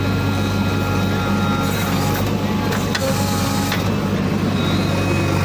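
JCB backhoe loader's diesel engine running steadily under work, with a few short sharp knocks.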